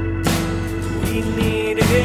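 Background music: a song with sustained notes over a steady bass.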